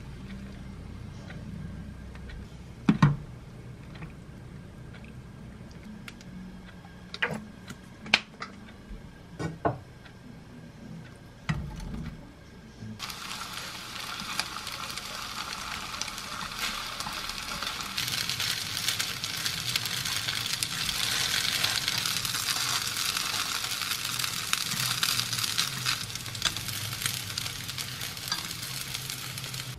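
A few sharp clinks and knocks of cooking utensils at a pot of boiled gnocchi, then, about halfway through, potato gnocchi starting to sizzle as they go into a hot, olive-oiled frying pan. The sizzling starts suddenly, holds steady and grows louder a few seconds later.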